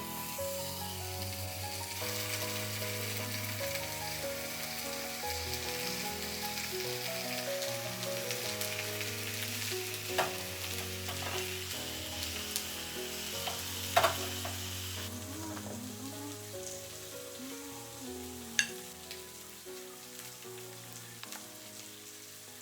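Food sizzling in a frying pan with a steady hiss that eases off about two-thirds of the way through, with a few sharp clicks along the way.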